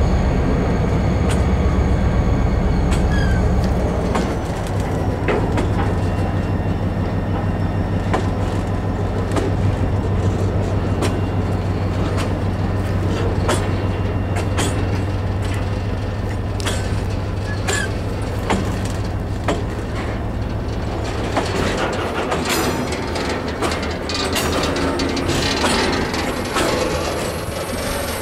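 Freight train tank wagons rolling past close by: a steady low rumble with repeated clacks of the wheels over the rail joints, and a few thin, high wheel squeals. The clacking grows busier in the last few seconds.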